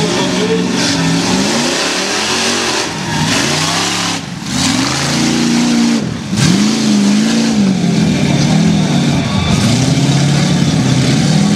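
Lifted mud-bog truck's engine revving hard, its pitch rising and falling again and again as it pushes through deep mud. The engine sound drops briefly twice, about four and six seconds in.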